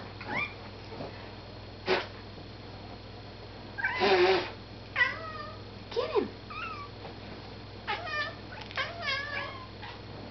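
Domestic cat making a run of short meows and chirps while watching a moth it is stalking, the excited prey-sighting calls cats make at a bug. A louder noisy burst comes about four seconds in.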